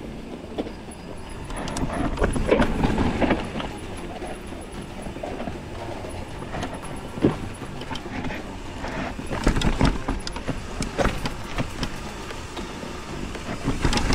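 Mountain bike riding down rock slabs: tyres rumbling over the rock, with the bike clattering and knocking over the bumps and several harder jolts along the way.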